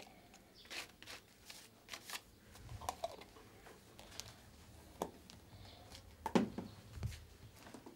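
Irregular light taps, clicks and rustles of hands handling plastic paint jars and a brush at a worktable, with a sharper knock about six and a half seconds in.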